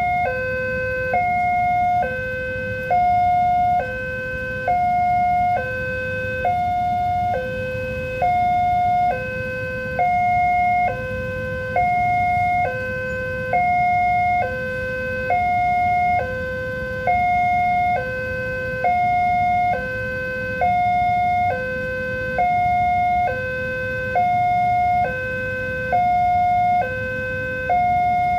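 Railroad level crossing's electronic warning alarm sounding a steady two-tone signal, a higher tone and a lower tone alternating, each held a little under a second, repeating without a break.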